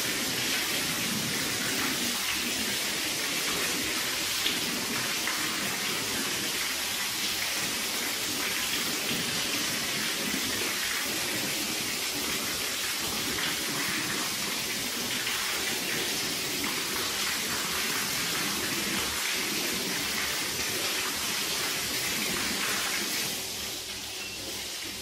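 Water spraying steadily onto a soaked shaggy rug, a dense even hiss of spray hitting the pile, easing off slightly near the end.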